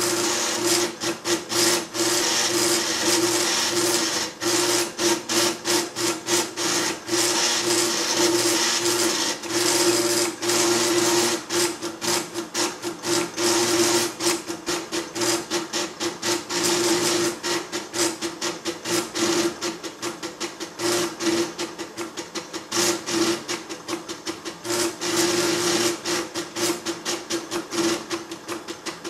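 Calcomp 565 drum plotter drawing, its stepping motors buzzing with a steady tone as they drive the pen and drum. The motion comes in runs broken by many rapid stops and starts as the pen moves from stroke to stroke.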